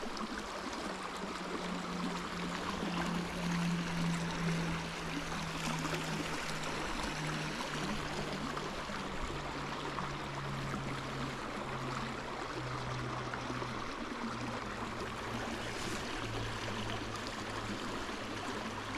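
Shallow creek flowing over gravel and around logs: a steady rush of running water. Under it a low hum steps slowly down in pitch.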